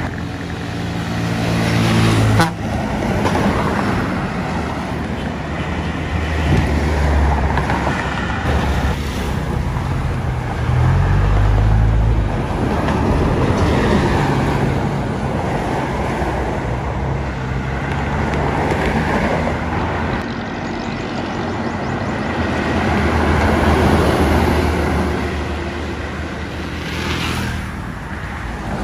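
Highway traffic with large diesel buses going by: engine rumble and tyre noise that swell several times as buses pass close.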